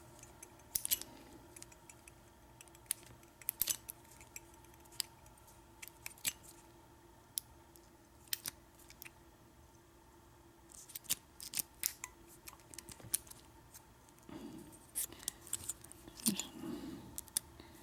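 Small metal-on-metal clicks and scrapes of a pick, key blank and shim being worked in a mortise lock cylinder while shimming it open: irregular sharp ticks, coming in quicker clusters toward the end, with some dull handling bumps.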